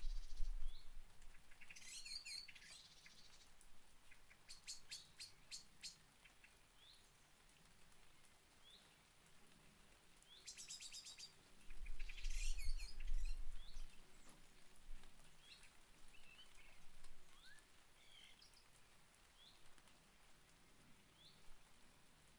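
Small songbirds chirping with scattered short calls and a few fast trills, over a faint steady hiss of light rain. A low rumble comes at the very start and again about twelve seconds in, the loudest thing heard.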